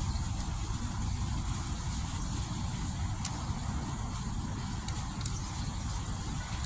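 Steady low rumble under a thin high hiss of small fountain water jets splashing.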